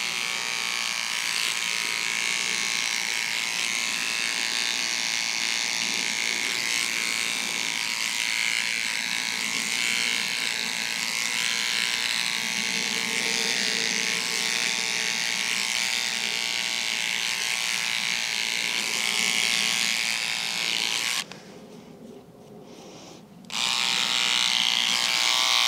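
Cordless electric beard trimmer running steadily as it cuts through short beard hair along the neck and jaw. It stops for about two seconds near the end, then runs again.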